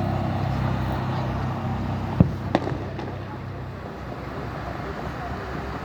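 Two sharp firework bangs about two seconds in, a third of a second apart, over the steady low hum of an idling vehicle engine that fades out partway through.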